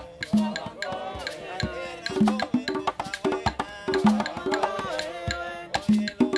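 Afro-Cuban rumba music: a steady pattern of hand drums hitting pitched tones against sharp wooden clicks.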